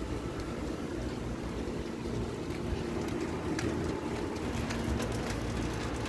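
Wind buffeting the phone's microphone in a low, steady rumble, over a faint steady hum, with a few scattered light ticks.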